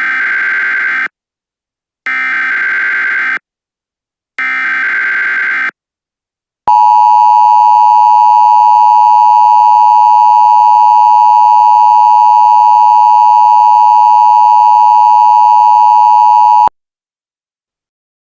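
Emergency Alert System header: three short blasts of screechy digital data tones about a second apart, then the steady, piercing two-tone attention signal held for about ten seconds before it cuts off sharply. This sequence marks the start of a new emergency alert message.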